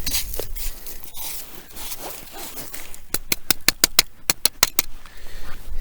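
Snow being scraped and raked over an ice-fishing hole, followed about three seconds in by a quick, even run of about a dozen sharp clicks.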